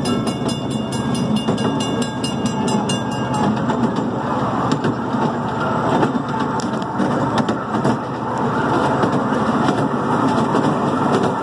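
Miniature ride-on train running along its track: a steady rumble and clatter of wheels on rails. For the first three seconds or so a crossing signal's bell rings in rapid even dings, then stops.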